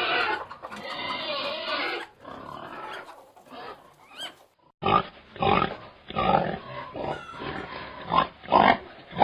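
Pigs grunting and squealing: a dense continuous din for about the first two seconds, quieter after, then from about five seconds in a run of loud short grunts.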